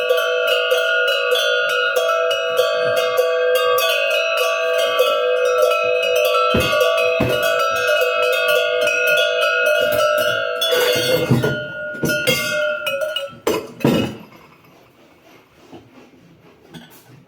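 Several metal bells shaken together, clanging rapidly over a blend of steady ringing tones. A little after ten seconds in the clanging breaks up into a few knocks and handling noises, and then only a faint ringing remains.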